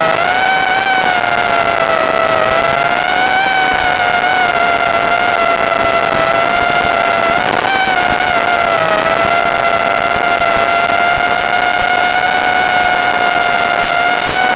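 Motors and propellers of a mini FPV quadcopter built on a FlexRC Owl frame, giving a steady high whine whose pitch rises and dips slightly as the throttle changes.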